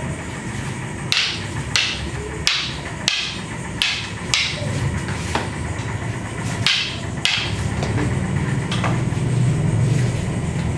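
Rattan arnis sticks clacking against each other in strike-and-counter drills: about ten sharp wooden cracks at an irregular pace, several in quick pairs, over a steady low hum.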